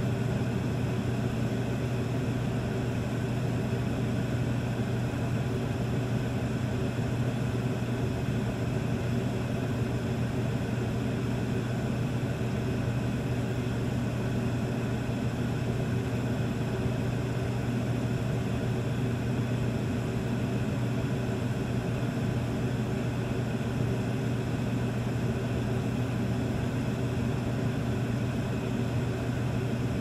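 Basement room tone with a furnace running: a steady low hum over an even hiss, unchanging throughout.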